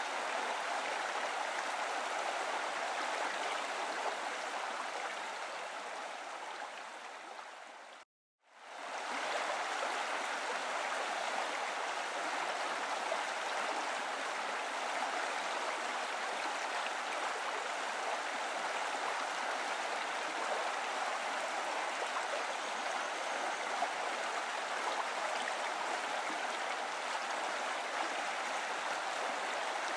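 Steady rushing of running water, like a stream, playing as a background sound track. About eight seconds in it fades away to a moment of silence, then swells back and runs on steadily.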